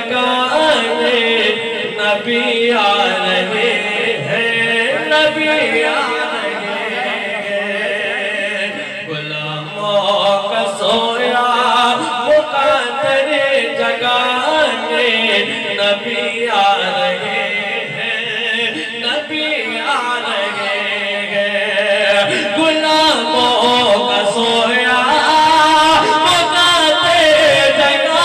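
Male voice chanting a naat, an Islamic devotional song, in long gliding melodic lines over layered backing voices.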